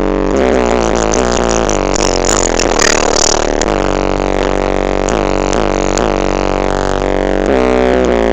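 Music played at high volume through a car's aftermarket sound system, driven by Explosound and H.Buster amplifier modules and a Pioneer head unit, with heavy deep bass notes held under the melody.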